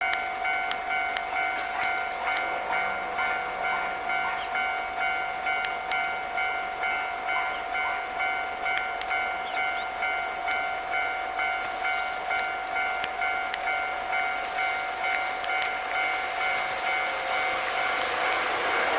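Japanese railway level-crossing alarm ringing its electronic 'kan-kan' bell, a steady, evenly repeating two-tone chime about one and a half strokes a second, the warning that a train is approaching.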